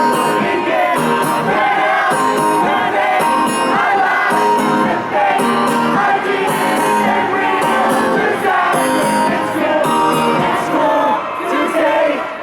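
Live band music in an arena, with a large crowd singing along loudly and shouting.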